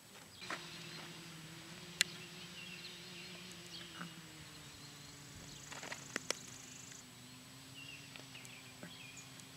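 Sharp cracks of a baseball during infield practice: the loudest about two seconds in and a few more around six seconds. Under them, birds chirping and a steady low hum.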